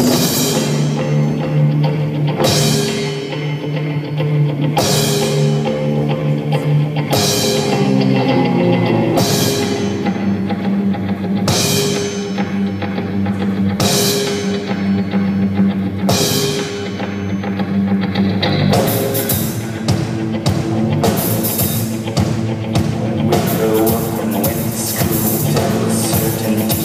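Live rock band with electric guitar, bass and drums playing an instrumental passage. A held bass line runs under a sharp ringing accent that falls about every two seconds. About two-thirds of the way in the drums turn to a steady, busier beat.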